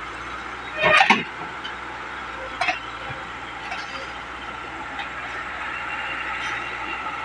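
Hitachi hydraulic excavator running as it crawls along a lowbed truck's steel deck, a steady engine and hydraulic whine. A short louder burst comes about a second in and a smaller one near three seconds.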